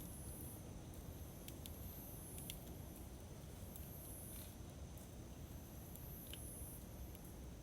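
Campfire burning with a faint, steady low rumble and a few sharp crackles scattered through. A high buzzing call, likely an insect, repeats about every two seconds.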